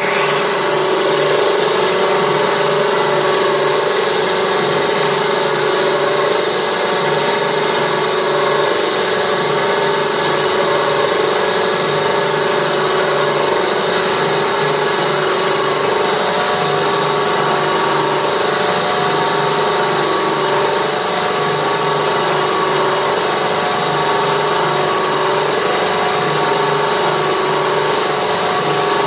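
Ribbon mixer blender running steadily, a constant machine hum with a high whine over it, as its ribbon agitator turns a load of brown powder.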